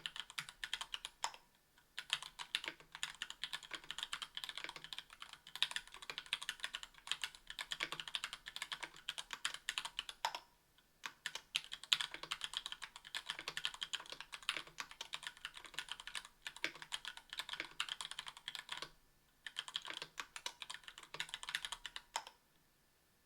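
Steady typing on a 60% aluminium keyboard with Gateron Yellow Ink linear switches, an aluminium plate and GMK keycaps: a dense run of keystroke clacks with a few brief pauses, stopping just before the end.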